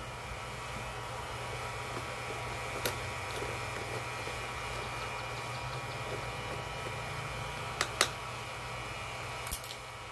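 Hair dryer, turned down, blowing air into a coal forge: a steady whirring hum. A few sharp clicks and knocks come from a steel rod stirring the burning coals, once about three seconds in and a couple of times near the end.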